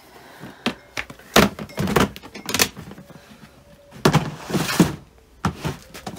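Clear plastic storage tubs being pulled out, handled and pushed back onto shelving: a string of hollow plastic thunks and knocks with short scraping clatters, heaviest about four to five seconds in.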